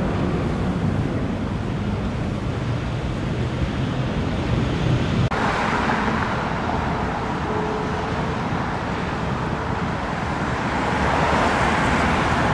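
Steady road traffic noise from passing cars, with a low rumble. The sound changes abruptly about five seconds in and swells near the end, as if a vehicle passes close by.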